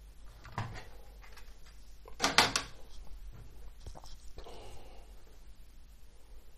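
Handling noise on a tabletop: a kitchen scale and a small FPV camera being moved and picked up, a few knocks and clicks with the loudest clatter about two seconds in, and a soft rustle near the end.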